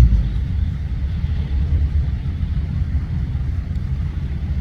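Heavy diesel engine running steadily, a low rumble, a little louder at the very start.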